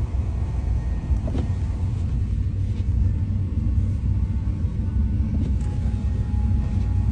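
Ram 2500 pickup's engine and drivetrain running with a steady low rumble, heard from inside the cab as the truck creeps through deep snow.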